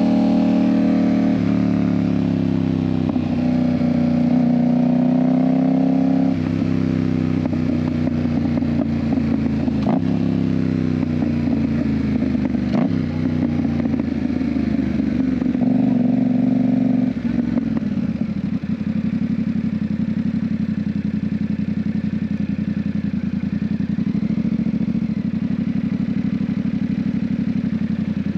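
Yamaha MT-07's parallel-twin engine, fitted with an IXIL exhaust, running under way with the engine note shifting up and down. It dips briefly twice, drops about seventeen seconds in, then runs steadily at lower revs.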